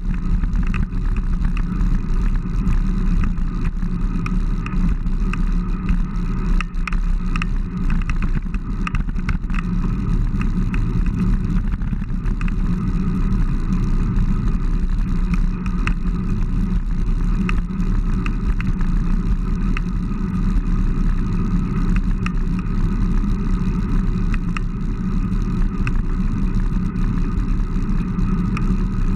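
Steady wind rush and road noise on the microphone of a camera riding along on a road bicycle at speed on asphalt.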